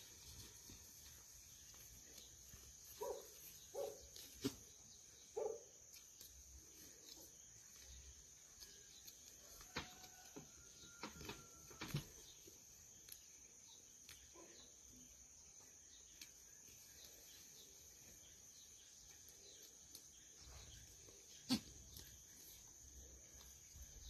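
Very quiet sound of goats grazing on grass and browsing leaves. There are a few faint short calls in the first few seconds, occasional sharp snaps with the loudest near the end, and a steady high hiss throughout.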